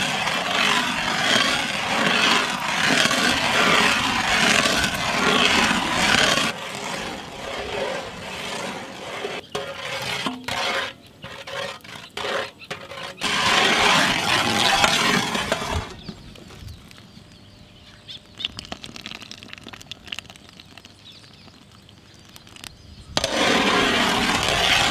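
Thick dragon fruit jam boiling and spluttering in a large metal pot over a wood fire: a loud, dense bubbling. It breaks up into scattered sharp crackles in the middle, drops to a quiet stretch, then comes back loud near the end.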